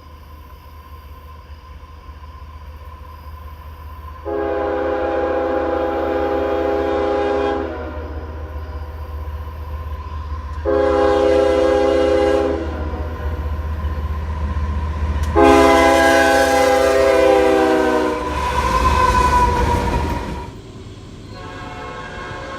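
Diesel locomotive's multi-note air horn sounding three blasts, long, short, long, over the low rumble of an approaching train. After the last blast comes a loud rush of noise as the train reaches the microphone, and then the sound drops back.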